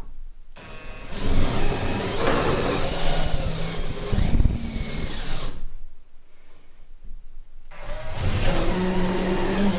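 Power drill running in two bursts, the first about five seconds long and the second starting a couple of seconds later.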